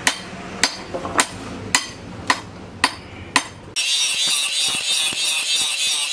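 Seven sharp metallic taps about half a second apart. Then, just before four seconds in, an angle grinder with an abrasive disc starts abruptly, grinding the steel of an axe head with a steady, high grinding noise.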